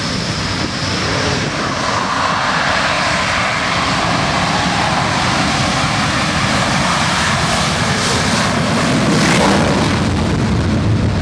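Engines of a pair of twin-engine F/A-18 fighter jets at takeoff power as they roll down the runway together: a loud, steady jet rush that swells slightly near the end.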